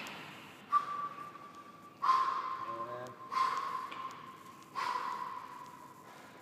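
Loaded steel barbell with bumper plates knocked four times on the gym floor, each knock followed by a short metallic ring that fades.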